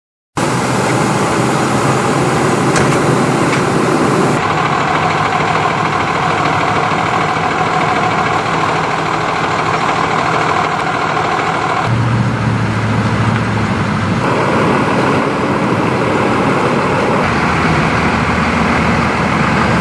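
Steady running of idling fire-rescue truck and ambulance engines, with the sound shifting abruptly about four and twelve seconds in.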